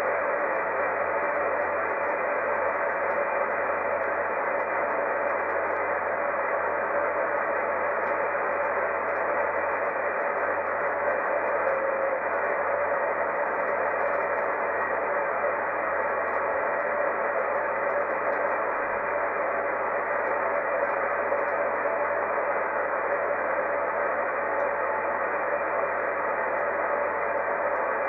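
Steady static hiss from an RTL-SDR receiver's demodulator in SDRAngel, squelch open, tuned across empty VHF airband frequencies with no transmission coming through.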